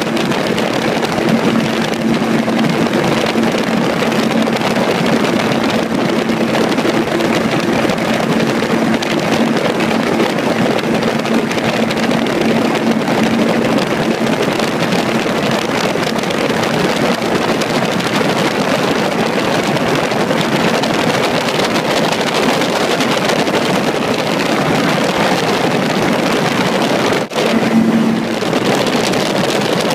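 Gyrocopter in flight: steady engine drone mixed with wind rushing over the microphone. A steady hum in the first half fades out, and the sound dips sharply for a moment near the end.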